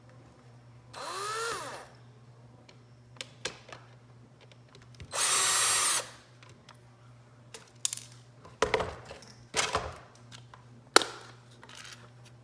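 Power drill running in two short bursts of about a second each while backing out the calculator case's remaining screws; in the first burst the motor's pitch rises and then falls. Several sharp clicks and knocks of small plastic parts follow.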